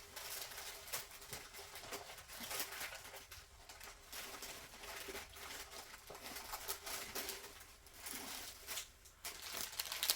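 Hands rummaging through a box of handmade craft items, with irregular crinkling and rustling of packaging. A faint steady hum runs underneath.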